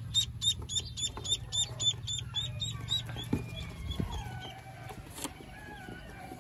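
Duckling peeping rapidly, about five short high peeps a second, stopping about three seconds in. Fainter wavering bird calls follow, with a single click near the end.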